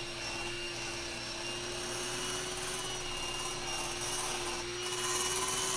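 Electric hand mixer running at a steady speed, its beaters churning chocolate cake batter that still has dry cocoa powder in it. It gets a little louder near the end.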